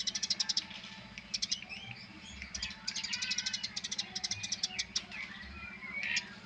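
Eurasian tree sparrow chattering: fast trains of short, high chirps, about ten a second, in bursts that stop and restart several times.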